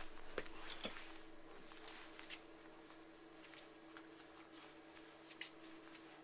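Faint handling noise as a TIG welding torch and its cable are picked up at a metal bench vise: rustling, loudest in the first second, with a few light clicks and knocks spread through. A steady low hum runs underneath.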